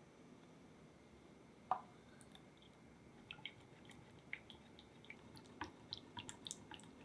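Faint small kitchen handling sounds during crepe making: a single light tap about two seconds in, then a scatter of small wet clicks and ticks.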